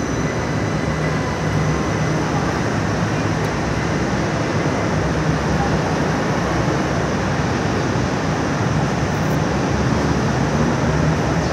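Light rail (LRT) train moving along the station platform: a steady rumble and hum of the train running, slightly louder near the end as the cars pass close by.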